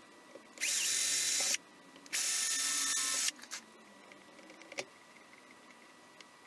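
Cordless drill-driver run twice, about a second each time, driving screws to fasten a bar to the wooden CNC bed, followed by a few light clicks of handling.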